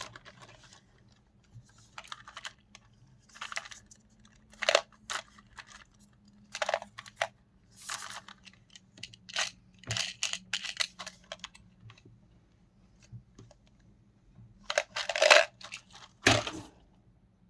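Pen packaging being handled: irregular bursts of paper or plastic rustling and crinkling, with small clicks and taps. The loudest is a cluster of rustles near the end.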